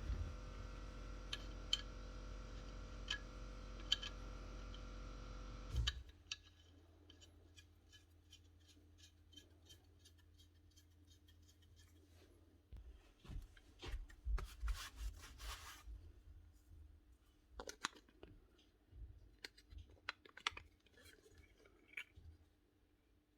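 Small clicks, scrapes and knocks of parts being handled and fitted as the Milwaukee M18 planer is reassembled, including a run of light regular ticks in the middle. A steady hum in the background cuts off suddenly about six seconds in.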